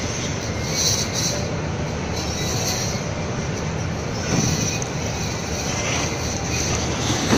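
Steady rumbling machine noise with a hiss over it, swelling slightly about four and a half seconds in.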